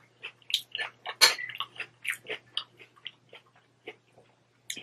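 A person chewing a mouthful of crunchy taco salad with tortilla chips, in irregular crunches that are loudest about a second in and thin out near the end.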